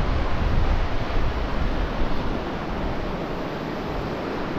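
Small waves washing in over a sand beach, with wind noise on the microphone.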